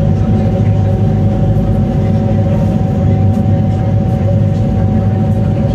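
Fast passenger ferry's engines running steadily under way: a loud, even drone with a steady whine above it, with the rush of the wake beneath.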